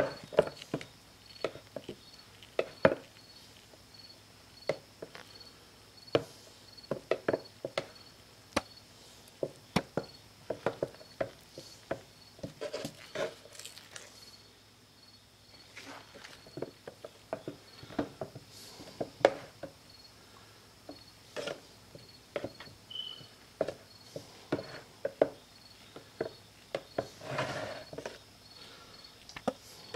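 Wooden stir stick clicking and scraping against the sides of a plastic cup while mixing epoxy resin, in irregular clusters of sharp knocks with short pauses. A faint high chirp repeats evenly about twice a second behind it.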